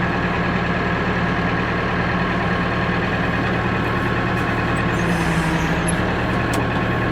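Backhoe's diesel engine running steadily under throttle, an even hum without change.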